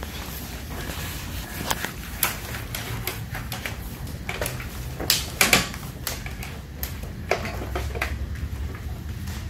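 Handling noise as the felt pipe liner and plastic tarp are moved on the floor: scattered rustles and clicks, with a few sharper clacks about five seconds in, over a steady low hum.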